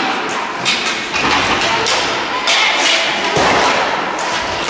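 Rink hockey play on quad skates: repeated sharp knocks and thumps of sticks and the hard ball against the floor and the boards, over a steady noisy rumble of skating in a large hall.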